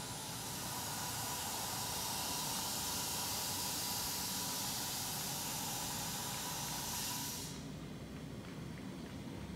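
SAB Goblin RAW 700 electric RC helicopter spinning down on the ground, its rotor and drive giving a steady high hiss with a faint tone under it. The hiss stops suddenly about seven and a half seconds in as the rotor slows nearly to rest.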